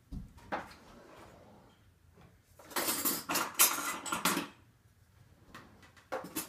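Rummaging through a kitchen drawer of cutlery for a spoon: a couple of knocks at the start, then metal utensils clattering for about two seconds in the middle.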